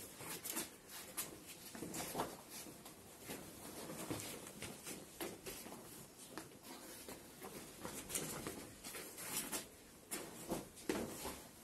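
Footsteps in sneakers scuffing and tapping on a tile floor, with the rustle of karate uniforms, as a scatter of soft, irregular taps.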